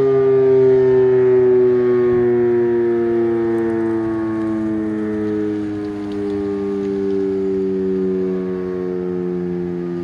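Federal Signal Model 7 warning siren winding down at the end of a test: its wail slowly falls in pitch and gradually fades.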